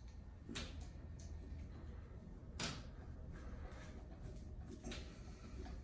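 Screws being driven with a screwdriver to fix a new doorknob latch into the edge of a door: faint, scattered clicks and scrapes of metal on metal and wood, with a few sharper ones about half a second, two and a half and five seconds in.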